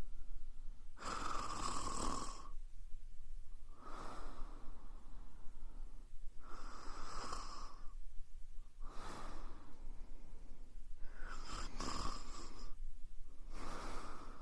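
A woman snoring: slow, regular breaths about every two to three seconds, alternating louder and softer snores.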